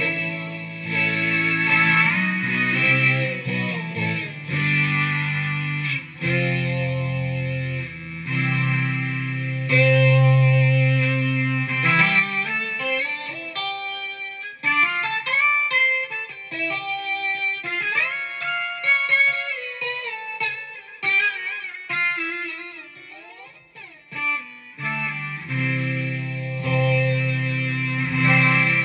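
Electric guitar played through a BOSS SY-200 synthesizer pedal, giving analog-style synth tones. Held synth chords come first; about halfway through the playing turns to single notes with pitch slides, and the chords return near the end.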